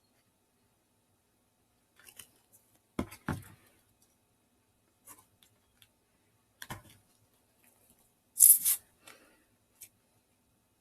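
Paper craft pieces being handled on a table: a couple of knocks about three seconds in, scattered light clicks, and a short crinkly paper rustle, the loudest sound, near the end.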